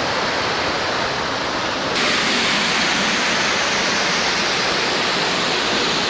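Large waterfall: a steady rush of falling water that turns abruptly louder and brighter about two seconds in.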